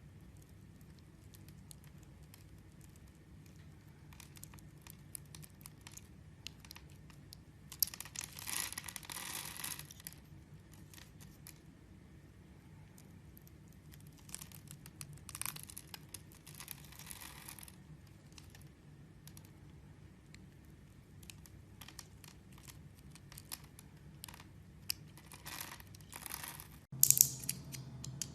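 A knife cutting and scraping through bars of soap: a few longer crackly strokes with small clicks between them, and a short, loud crackle near the end.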